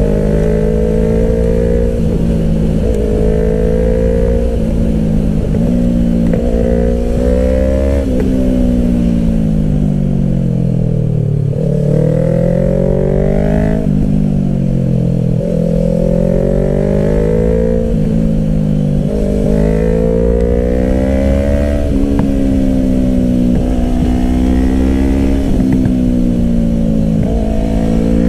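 Yamaha R3's parallel-twin engine under way, heard from the bike. It revs up through the gears, dropping sharply in pitch at each upshift, and a little after a third of the way in it winds down in a long fall as the bike slows, then climbs again.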